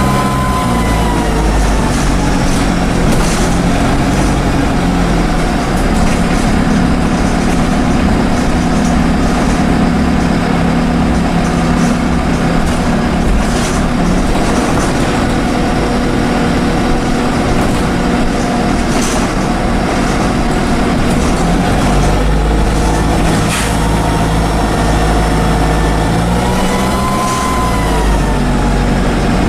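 Dennis Dart single-deck bus under way: its Cummins diesel engine and Allison automatic gearbox running, with a turbocharger whine that rises and falls as the bus pulls and changes gear, and a few knocks and rattles from the body. The uploader calls this worn bus knackered.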